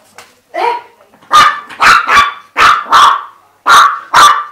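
Chihuahua barking loudly at a shed snake skin: a short lower sound, then a run of seven sharp, high barks.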